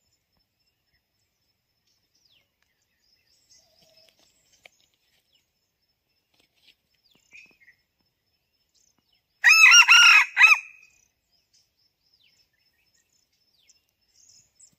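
Red junglefowl rooster crowing once, a single short crow about two thirds of the way through. A few faint, high bird chirps are heard around it.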